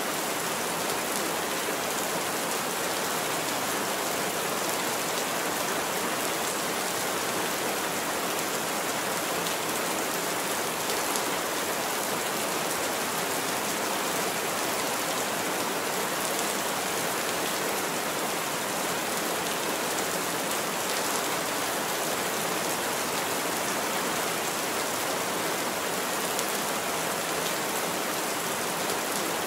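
Heavy rain falling steadily on a roof: an even, unbroken hiss with no thunder.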